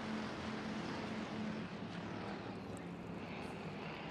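A field of IMCA Hobby Stock race cars under power at the start of a heat race: many engines blending into one steady drone, easing slightly partway through.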